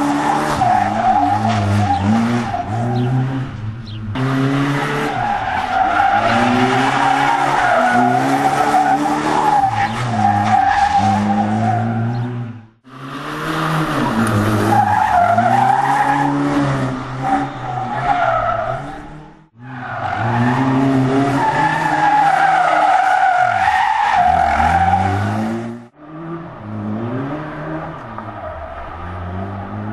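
Opel Corsa rally car engine revving hard and rising and falling through gear changes, with tyres squealing through corners. The sound breaks off abruptly three times between clips, and the last part is quieter and duller.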